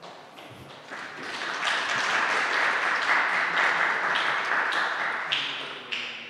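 Audience applauding: the clapping swells in about a second in, holds steady, then fades away near the end.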